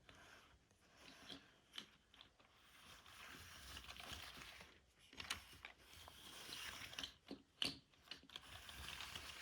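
LEGO plastic pieces being handled and fitted together: a faint rustle broken by several sharp clicks, the sharpest a little past the middle and near the end.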